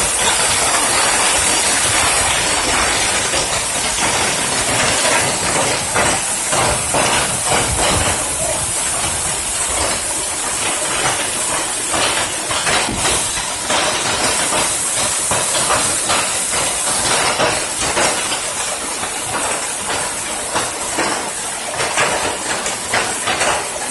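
Golf-ball-sized hail pounding down with heavy rain: a loud, steady hiss crowded with countless sharp hits of hailstones striking hard surfaces.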